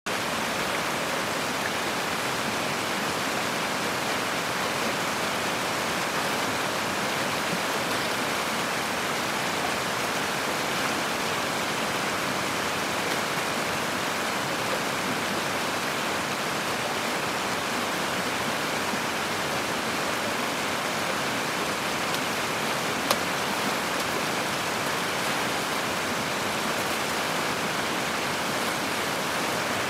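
Steady rush of a fast-flowing river running over rocks, with a single sharp click about two-thirds of the way through.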